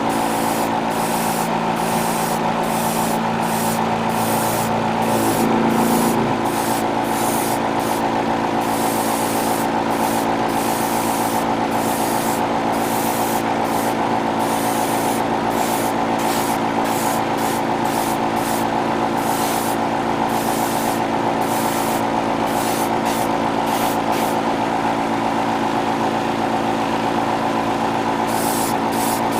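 Airbrush compressor running with a steady hum while the airbrush hisses in short bursts, about one a second, as the trigger is pulled on and off for light spray passes of paint; the bursts stop for a few seconds near the end.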